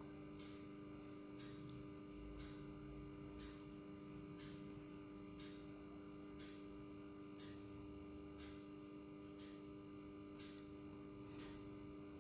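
Steady faint electrical mains hum made of several steady tones, with a faint tick about once a second.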